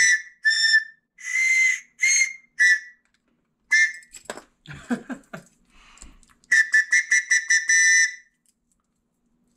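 Small plastic survival whistle blown in a series of short, shrill blasts, with two close tones sounding together. Softer, lower sounds come midway, then a fast fluttering run of blasts near the end.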